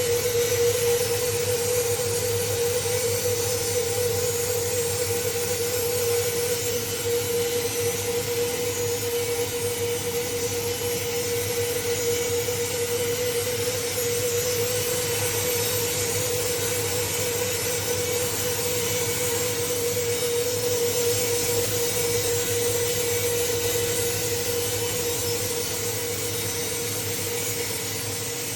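Power saw running steadily with a constant whine while cutting through Nigerian gõ đỏ hardwood, easing off slightly near the end.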